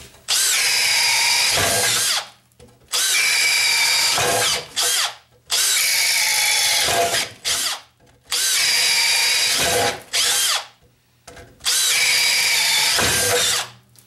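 Makita drill with a spade bit boring 1-inch holes through a 2x4: five runs of about two seconds each, one hole apiece, with short pauses between.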